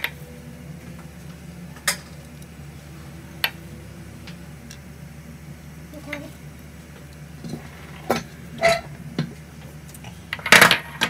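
Sharp clicks and taps of a hand picking crushed walnuts out of a small glass bowl, a few at a time, with a louder cluster of knocks near the end. A steady low hum sits underneath.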